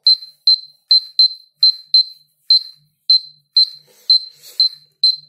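Polimaster PM1703GNA dosimeter's radiation alarm beeping: a string of short, sharp high-pitched beeps, a little over two a second at uneven intervals. The alarm is set off by a radioactive sample laid on the dosimeter pushing the dose-rate reading up.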